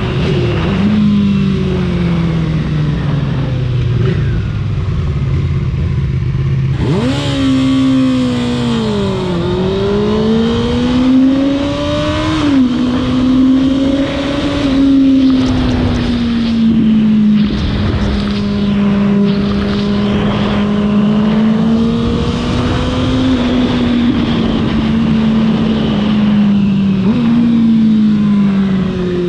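Kawasaki ZX-6R inline-four engine under way. It revs up sharply about seven seconds in, then keeps rising through the gears, its pitch dropping suddenly at each upshift, twice more, and holds a steady cruise in between.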